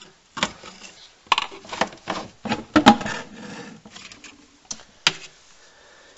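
Plastic spray bottles being put back and shifted on a cupboard shelf, knocking against each other and the shelf: a string of clatters and knocks, the loudest about three seconds in, with one more sharp knock about five seconds in.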